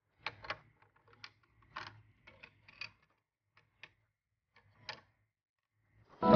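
Small hard plastic toy pieces clicking and tapping as miniature play food and plates are set down on a plastic toy table, some picked up with plastic tongs; light, irregular clicks. Just before the end, a brief louder pitched sound.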